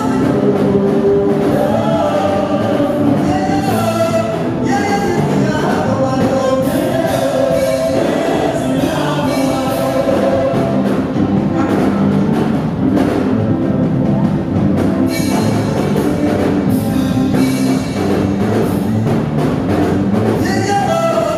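Gospel praise music: a lead singer and a group of backing singers singing into microphones with musical accompaniment, heard through the PA.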